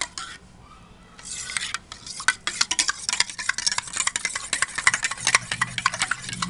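Spoon stirring milk with sugar and instant coffee round a stainless steel bowl. It scrapes and clinks rapidly against the sides with a swishing of liquid, stirred continuously to dissolve the sugar and coffee powder. There is a brief lull about half a second in.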